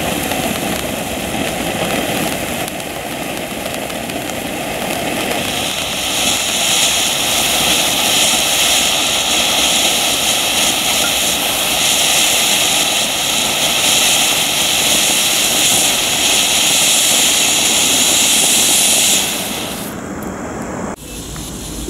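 A 200 g cone firework fountain spraying sparks with a steady rushing hiss. About six seconds in it grows louder and harsher, then drops away sharply near the end as the fountain burns out.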